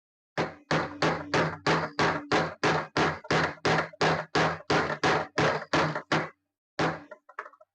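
Hammer lightly tapping a new gear pulley onto a stepper motor's shaft, about twenty quick, even strikes at nearly four a second, each with a short metallic ring. They stop about six seconds in, followed by one more strike and a few lighter taps near the end.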